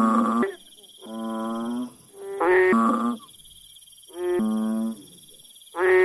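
A toad calling: a run of calls, each under a second long and held on one pitch, about four of them, repeating roughly every one and a half seconds.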